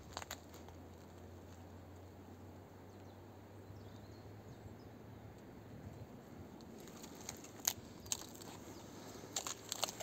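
Footsteps on dry twigs and cut branches, twigs snapping and crunching underfoot, starting about seven seconds in after a stretch of faint steady background noise.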